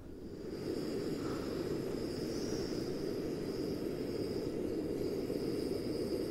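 EOE Cobaltum remote-canister gas stove burner running at full flame, a steady roar with a thin high hiss over it. It gets louder about half a second in as the gas is turned up to maximum.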